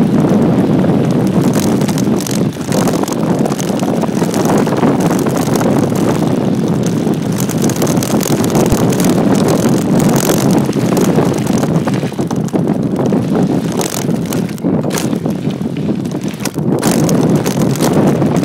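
Wind noise on the microphone mixed with tyres rumbling over a loose dirt and gravel track during a mountain-bike descent, with scattered knocks and rattles from the bike over bumps.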